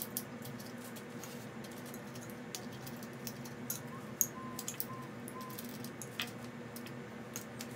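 Scattered light metallic clicks and taps of a hand wrench working case nuts off the studs of an air-cooled VW engine case, over a faint steady hum.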